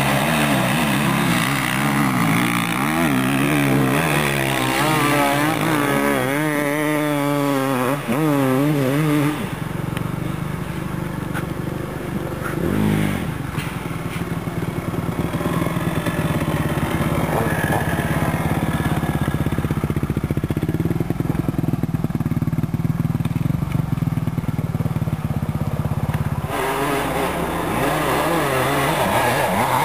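Dirt bike engines revving, the pitch swinging up and down over the first several seconds. About nine seconds in the sound changes abruptly to a steadier engine drone from a bike climbing the hill, with a brief rising rev a few seconds later.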